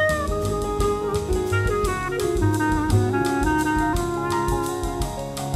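Jazz quartet playing: a clarinet melody with sliding notes over piano, double bass and a steady cymbal beat on the drum kit.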